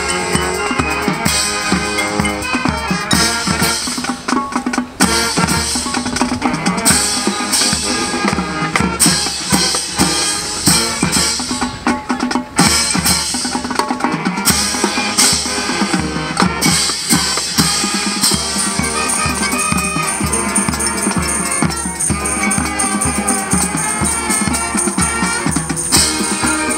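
Marching band playing, brass over a drumline of snare and bass drums, with two brief breaks about five and twelve seconds in.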